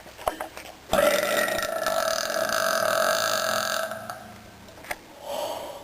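A person burping deliberately: one long belch of about three seconds, starting about a second in. A brief, quieter sound follows near the end.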